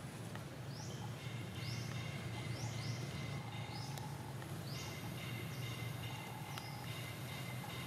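Short, high-pitched rising animal calls repeated about once a second, over a steady low background hum.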